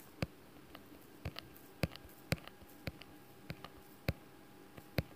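Quiet room tone with sharp, faint clicks about twice a second, some a little irregular, over a low steady hum.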